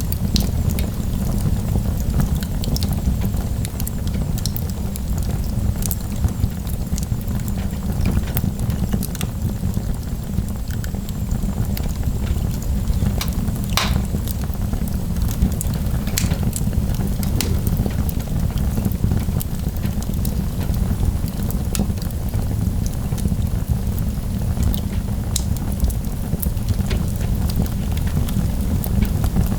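Wood fire in a fireplace crackling, scattered sharp pops over a steady low rumble, with one louder pop about halfway through.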